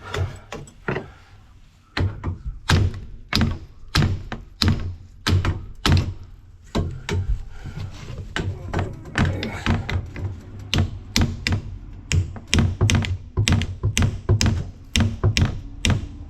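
Repeated tapping blows, about one to two a second with a short pause about a second in, knocking a part to seat it fully in place.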